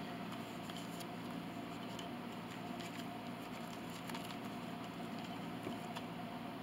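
Glue being spread onto a wooden pinblock piece: faint, scattered small ticks and rubbing over a steady low hum.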